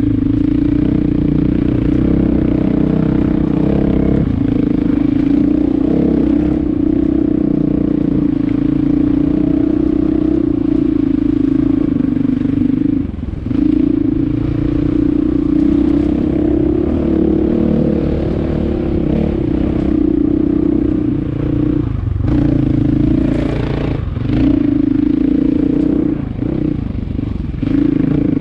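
An engine running steadily at speed, its pitch and level dipping briefly about halfway through and twice more near the end.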